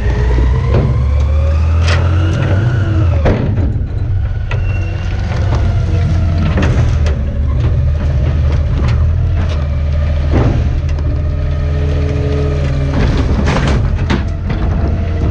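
Garbage truck engine running with a heavy low rumble, its pitch rising over the first few seconds and dropping about three seconds in, with repeated metallic knocks and clanks.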